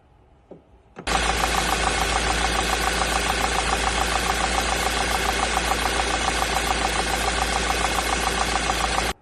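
Car engine running steadily with a fast, even pulsing. It starts abruptly about a second in and cuts off suddenly just before the end.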